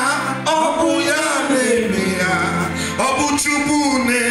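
A man singing a worship song into a microphone, with sustained instrumental notes underneath.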